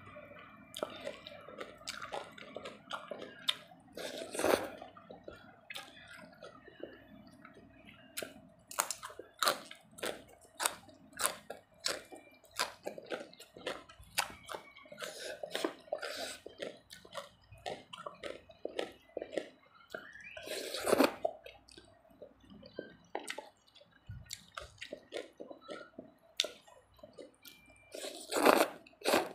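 Close-miked eating of spicy rice-noodle salad (tam sua with khanom jeen) by hand: wet chewing with many quick smacks and clicks of the mouth. There are three louder, longer slurps of noodles, about four seconds in, about 21 seconds in and near the end.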